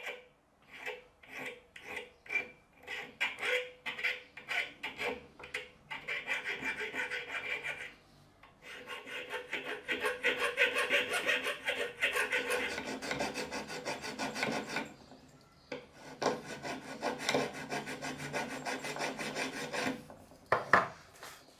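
Small hand file scraping across the steel cutting edges of a homemade countersink bit, sharpening it: quick back-and-forth strokes, about two or three a second at first and then faster, in three runs with short pauses between. A sharp knock near the end.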